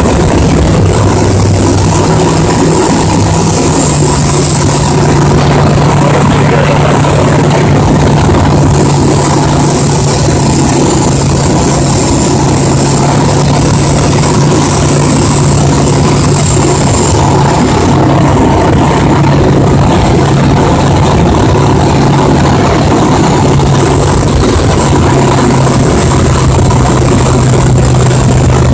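Light aircraft's piston engine and propeller heard from inside the cockpit in cruise: a loud, steady drone with a rushing noise over it, its low note shifting a little a few seconds in and then holding.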